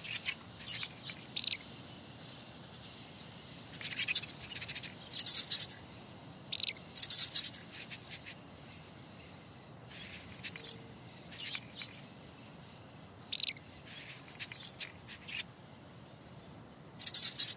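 Mouse squeaks: clusters of short, high squeaks and clicks every second or two, over a faint steady background hiss.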